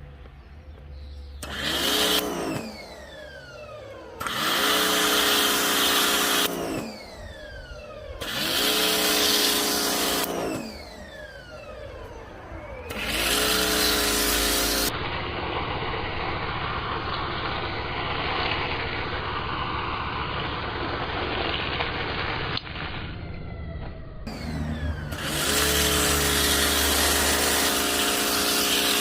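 Electric pressure washer spraying through a snow foam lance in short runs. Each time the trigger is pulled the motor spins up with a rising whine over the hiss of spray, and on release it winds down with a falling whine. There are four runs of about two seconds each, then a longer stretch of steady spraying, then another run near the end.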